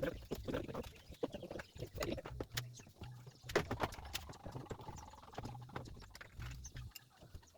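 Irregular light clicks and knocks of tools and metal engine parts being handled, with a low rumble coming and going underneath.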